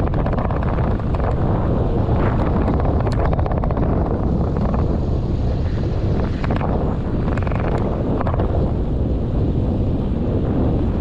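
Wind buffeting a bicycle handlebar-mounted action camera's microphone while riding, a loud steady rumble with scattered light clicks and rattles on top.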